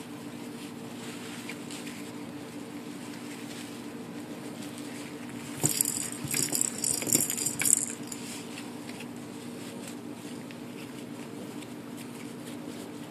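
Foil tinsel garland crinkling and rattling for about two seconds as a puppy scrambles through it, starting near the middle, over a steady low hum.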